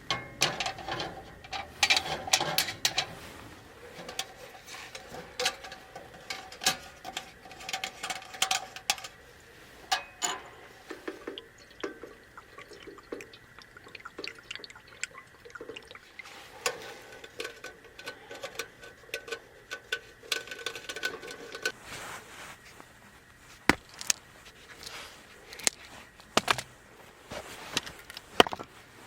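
Liquid being poured and trickling, among many small clicks and knocks of things being handled.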